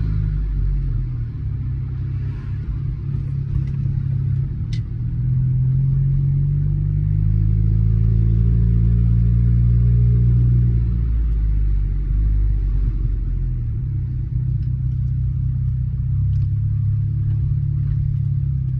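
Audi A4 B8's turbocharged TFSI four-cylinder engine running, its pitch rising and falling slowly as the revs change. The downpipe exhaust leak has been cured by machining the flange.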